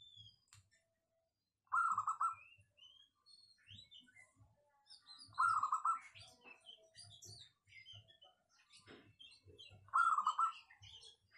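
Zebra dove (perkutut) cooing: three short, trilled coo phrases about four seconds apart.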